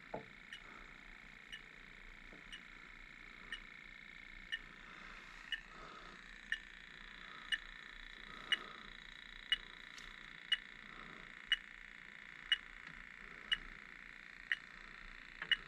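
Electronic refrigerant leak detector beeping at its slow, even idle rate, about once a second, over a faint steady hiss. The unchanging rate means it is picking up no refrigerant at the evaporator coil.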